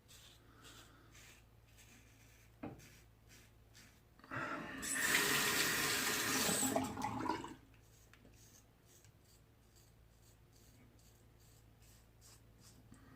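Water tap running into a sink for about three seconds, where the shaver rinses while using a double-edge safety razor. Before and after it there are faint, short scraping strokes, and a single sharp knock comes a little before the water.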